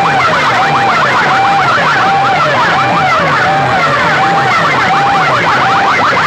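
Electronic siren-style sound effect played loud through a DJ sound system: wailing tones that rise, hold and fall over and over, layered with rapid falling chirps and a fast low pulse.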